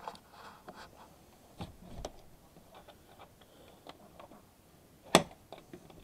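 Footsteps crunching on thin snow, with scattered light clicks and one sharp click about five seconds in.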